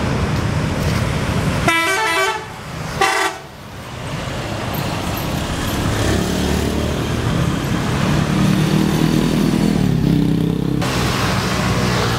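Bus telolet horn playing a quick stepped melody of several tones, followed a moment later by a short second blast, over road and engine noise. A bus engine then runs louder with a steady low drone, which stops abruptly near the end.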